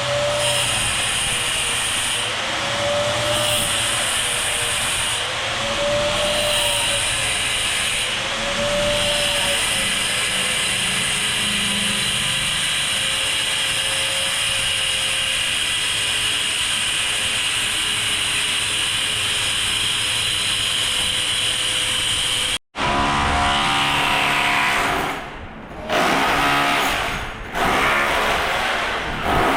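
A power tool runs steadily for about twenty-two seconds, typical of demolition work. Then there is a sudden cut to a different machine sound with a pitched hum that drops out twice near the end.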